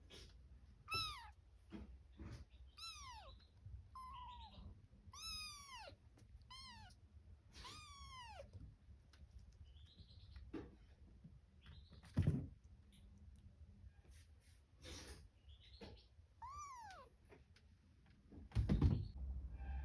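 Kitten mewing: a string of short, high-pitched mews that rise and fall, about eight in the first nine seconds and a couple more later. Two dull thumps fall between them, about twelve seconds in and near the end, the second one the loudest sound.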